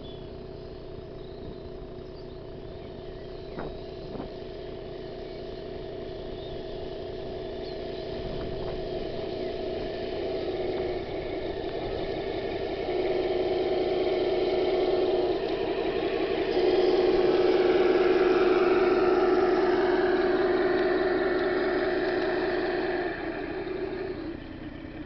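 Two 1/16 radio-controlled model tanks driving through grass: a steady mechanical drive whine that grows louder as they approach, with some higher gliding tones at its loudest, then drops off sharply near the end as they pass.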